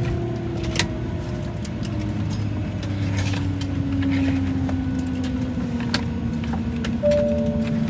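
Embraer E190 jet engines winding down after shutdown, heard inside the cabin: a low hum with whining tones that slowly fall in pitch. Scattered sharp clicks sound over it.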